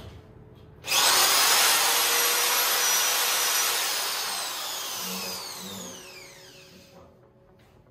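Corded power drill triggered to full speed about a second in, running with a high whine. It is then released and spins down, its whine falling in pitch and fading over about three seconds.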